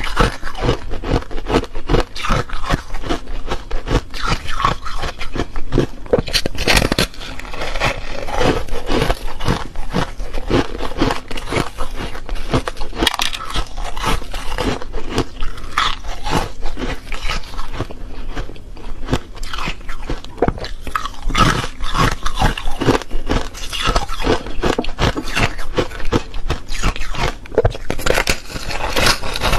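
Refrozen foam ice being bitten and chewed close to the microphone: a dense, continuous run of crisp crunches and crackles as the frozen foam breaks between the teeth.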